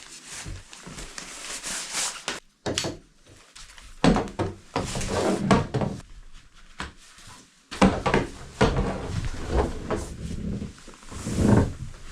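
A person settling down on the wooden floor of a trail shelter: scattered knocks and rustling, with breathy vocal sounds partway through and again in the latter half.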